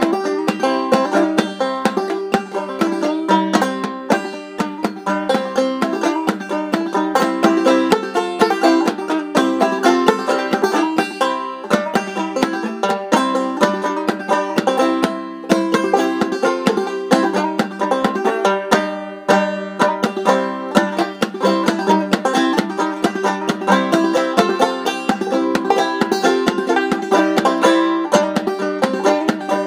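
Banjo played clawhammer style, a fast unbroken run of plucked notes.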